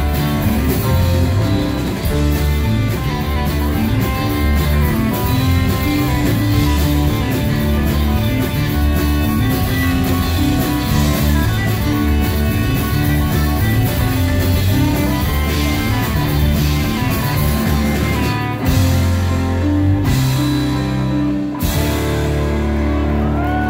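Rock band playing live: electric guitars, bass and drums. In the last few seconds the playing turns to long held low notes.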